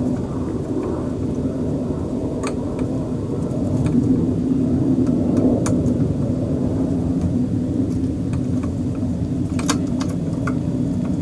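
A steady low rumble, with a few faint sharp clicks of small parts being handled.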